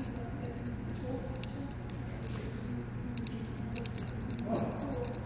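Light clicking and rustling from handling a Cat6a cable and its plastic RJ45 connector, a cluster of small ticks in the middle, over a steady low hum.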